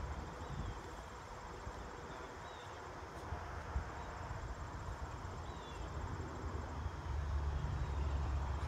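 Field ambience with insects trilling in a fine, even, high-pitched pulse, a few faint bird chirps, and wind rumbling on the microphone, heavier in the last couple of seconds.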